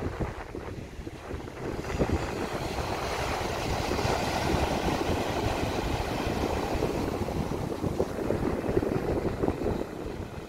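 Small waves breaking and washing up on a sandy beach, with wind buffeting the microphone. The wash of the surf swells about two seconds in.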